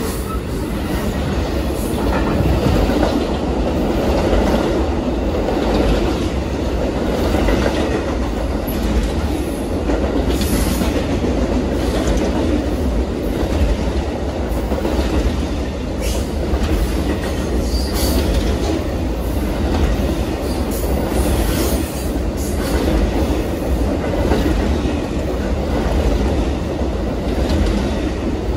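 Amtrak train of Superliner bilevel cars and enclosed auto-carrier cars rolling past at speed close by: a steady, loud rumble of wheels on rail, with frequent clicking as the wheels cross rail joints.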